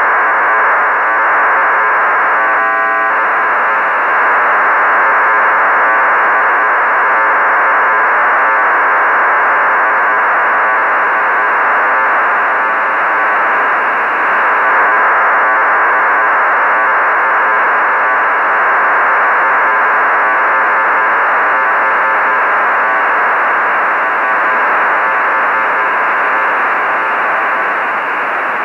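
HuskySat-1's 1200 bps BPSK telemetry downlink heard as radio receiver audio: a loud, steady, harsh data hiss cut off sharply above about 3 kHz. A brief buzzy tone sounds about three seconds in.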